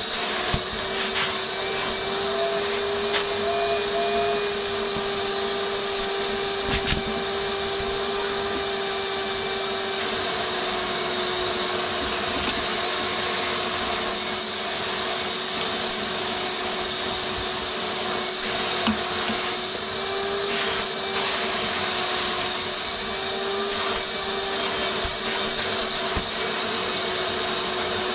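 Vacuum cleaner running steadily while vacuuming van seats: a constant motor whine over a rushing hiss, its pitch wavering slightly at times, with a few short clicks.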